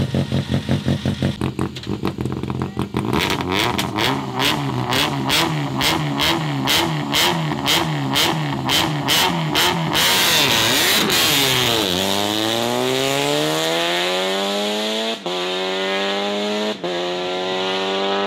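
Rally car's engine held on the start line, revs bouncing up and down in a steady rhythm. About ten seconds in it launches with a rush of noise and accelerates away, the engine pitch rising hard and breaking twice for quick gear changes.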